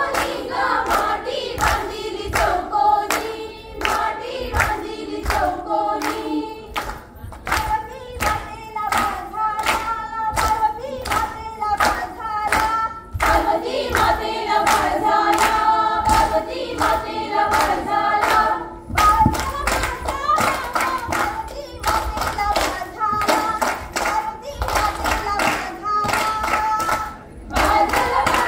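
A group of women singing a fugdi folk song together, with steady rhythmic hand-clapping of about two to three claps a second.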